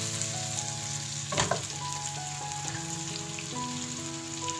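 Soy-marinated chicken pieces frying in sunflower oil in a pot, with a steady sizzle and one sharp knock of the tongs against the pot about a second and a half in. Soft background music of held notes plays underneath.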